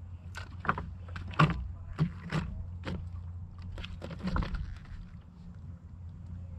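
Irregular knocks and clacks of shoes and rock on a shoreline of loose boulders as a person bends and crouches down, about ten of them over four seconds, over a steady low rumble.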